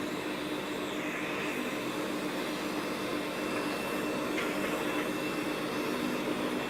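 CNC wood lathe with automatic blank loading running, a steady whirring machine noise with a steady hum underneath.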